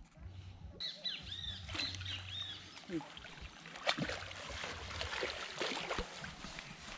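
Water splashing and sloshing as a large hooked fish thrashes at the surface and is scooped into a landing net, with a few sharper splashes. Birds chirp early on.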